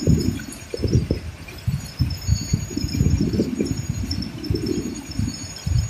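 Wind buffeting the phone's microphone on a moving boat: an irregular, gusty low rumble that swells and drops every second or so.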